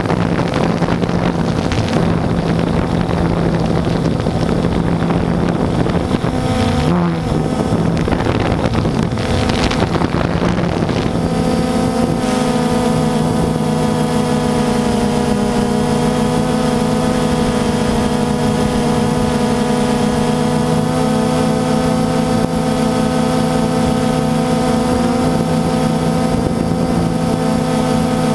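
Multirotor drone's electric motors and propellers humming steadily in flight, recorded on board, with wind rushing over the microphone. The wind rush is heavier for the first ten seconds or so, then the motor hum settles into clear, steady tones.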